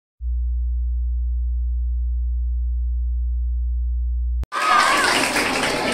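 A steady, deep low tone that holds evenly for about four seconds and then cuts off abruptly. It gives way to the chatter of many voices echoing in a large hall.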